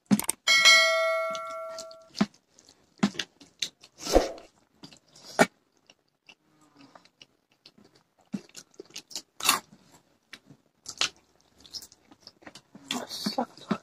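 A bright chime of several tones rings and fades over about a second and a half, starting about half a second in; it matches the subscribe-button animation on screen. After it come close-up eating sounds of rice being eaten by hand: chewing, crunching, lip smacks and scattered small clicks.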